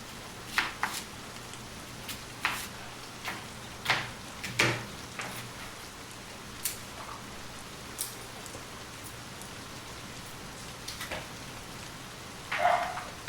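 Steady rain hissing, with irregular sharp taps scattered through it and a brief clatter near the end.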